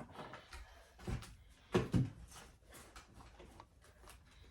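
Handling noises from putting a Halloween prop in place: a few dull knocks, the loudest a pair about two seconds in, among lighter rustles and clicks.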